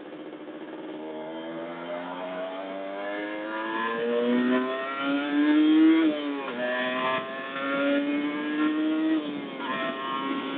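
Kawasaki Ninja motorcycle engine accelerating hard through the gears, heard from on board: the revs climb steadily for about six seconds, drop with an upshift, climb again, and drop once more near the end.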